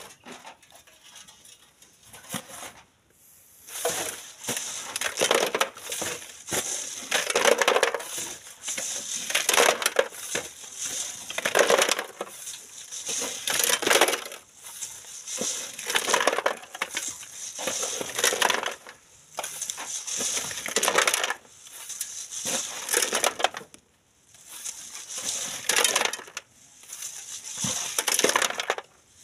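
Sand and gravel rattling and hissing across a hand-held wire-mesh sand sieve shaken back and forth, in rhythmic pulses about every two seconds after a quieter first few seconds, mixed with a hoe scraping into the sand.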